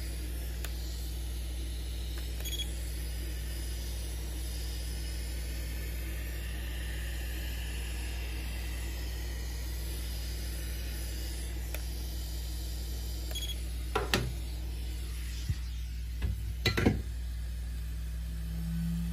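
Hot-air heat gun blowing steadily, a soft even hiss over a low hum, heating a phone's glass back cover so it can be lifted off. From about 14 seconds in come a few short clicks and knocks of handling.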